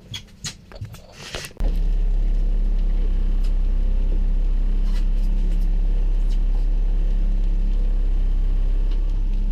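A few handling clicks and knocks, then, about a second and a half in, the sound cuts in sharply to a fishing boat's motor running steadily at trolling speed with a heavy, steady low rumble.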